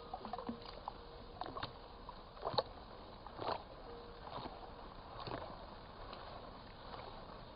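Water sloshing and splashing as a gold pan of sand is shaken and swirled under water in a kiddie pool, in irregular swishes about once a second; the material is being stratified so the heavy minerals sink to the bottom.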